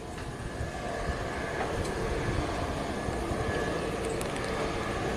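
Distant Airbus A330-900neo on final approach: its Rolls-Royce Trent 7000 engines give a steady hum with a faint whine over a low rumble.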